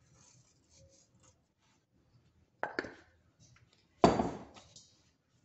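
Two sharp knocks of kitchenware being handled, about a second and a half apart, the second louder, each with a short ring. Faint rustling comes before them.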